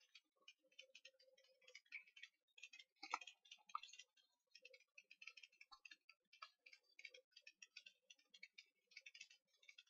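Faint, irregular light clicks and ticks of tarot cards being handled and sorted through in the hands, with a slightly sharper click about three seconds in.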